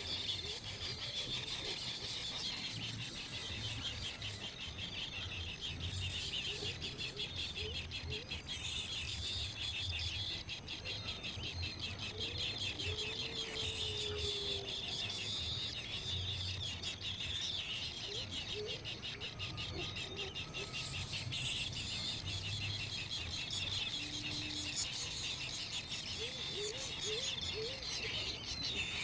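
Baby birds chirping without a break in fast, high, repeated calls, with a low rumble underneath.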